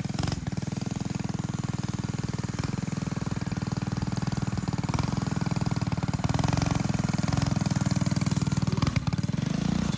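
Mini bike's single-cylinder Predator engine running, getting a little louder about six seconds in.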